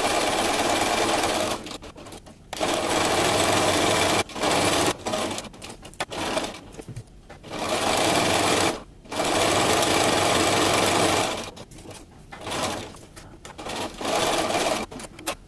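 Sewing machine top-stitching around the edge of a fabric bib, running in runs of one to two seconds that start and stop several times as the fabric is turned, with a few shorter bursts near the end.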